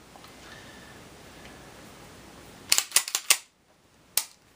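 Sharp metallic clicks and clacks of a TISAS 1911 pistol being cleared by hand: a quick run of about five clacks nearly three seconds in as the slide and magazine are worked, then a single click about a second later.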